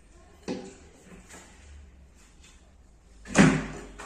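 Knocks from a dark wooden Home Centre Cresta bed panel being handled and moved: a light knock about half a second in and a louder thump a little after three seconds.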